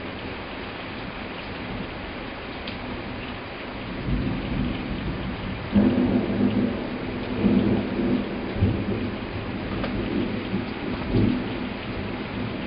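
Heavy summer cloudburst hissing steadily, with thunder rumbling in about four seconds in and rolling through several loud peaks before easing near the end.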